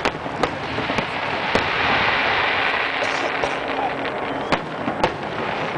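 Fireworks going off: sharp single bangs at the start, about half a second in and about a second later, then two more close together near the end, with a continuous noisy rush in between.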